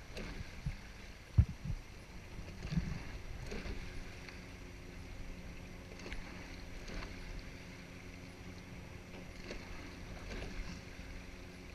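Rowing eight under way: oars knocking in their oarlocks and splashing at the catch about every three and a half seconds, over a steady rush of water along the hull. A sharper thump comes about a second and a half in.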